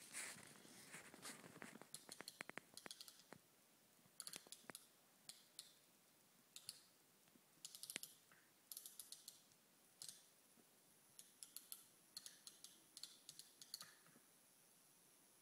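Faint, irregular clicking and light rattling of a small toy crane and toy helicopter being handled, the clicks coming in quick clusters.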